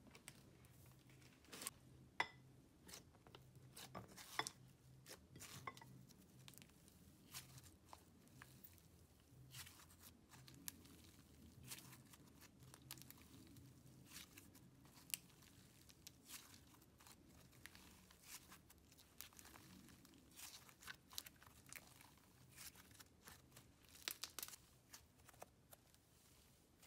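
Cloud slime being pulled and stretched by hand: quiet, irregular soft tearing and crackling, with scattered sharp clicks as its fibrous strands pull apart.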